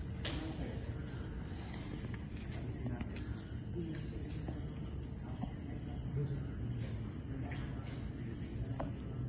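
Crickets trilling steadily in a high-pitched night chorus, over a low rumble and a few faint clicks.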